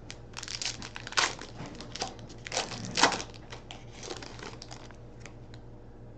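Wrapper of a hockey card pack being torn open and crinkled. The rustles come irregularly, loudest around one and three seconds in, and die away near the end.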